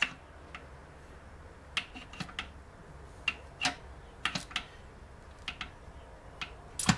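Irregular light clicks and clinks of steel parts being worked by hand inside an open BE4 gearbox casing, as the reverse-gear fork and its shaft are moved. There are about a dozen, with a louder knock near the end.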